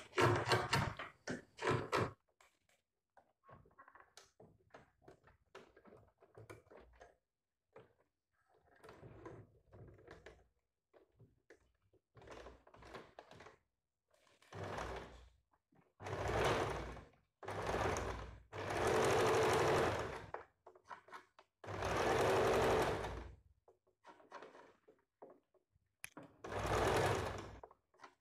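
Domestic electric sewing machine stitching in short runs that start and stop, about half a dozen in the second half. Between runs there are quieter rustles and clicks of fabric being handled.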